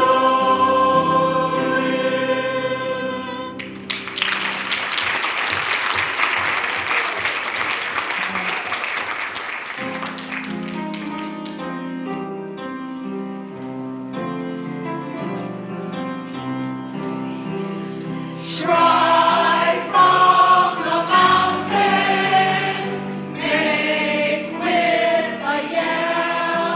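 A group of performers singing a song with instrumental accompaniment. About four seconds in the singing breaks off into several seconds of clapping. The accompaniment then plays on alone, and the singing comes back in about two-thirds of the way through.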